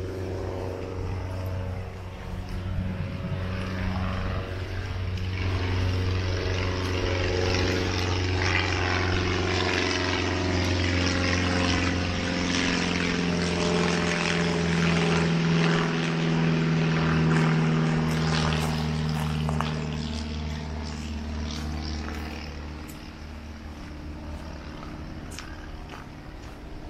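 Propeller airplane flying over: a steady engine drone that swells to its loudest in the middle and then fades, its pitch sinking slowly as it passes.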